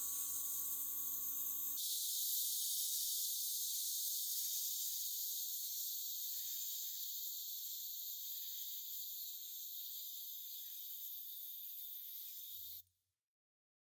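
Steady spraying hiss that cuts off suddenly near the end, with a low steady hum under it for the first two seconds.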